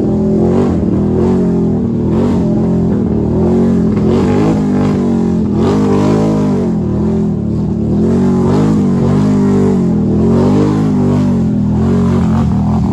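Can-Am ATV engine revving hard and repeatedly, the pitch rising and falling with the throttle every second or so, as the quad ploughs through deep muddy water with splashing.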